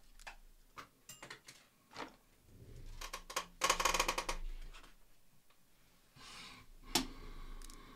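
Scattered light clicks and taps from hands handling a laptop's display panel and its plastic parts. A short crackling rasp comes a little past halfway, then a softer rustle with one sharp click near the end, as the tape and plastic shield over the display cable connector are worked loose.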